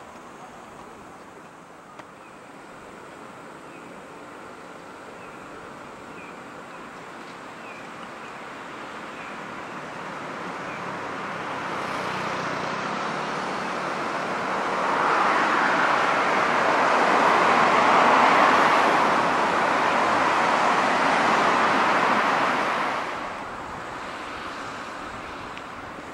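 Road traffic on a wide multi-lane road: the tyre and engine noise of a stream of cars swells over several seconds into a loud, steady rush as they pass close by, then falls away sharply about 23 seconds in.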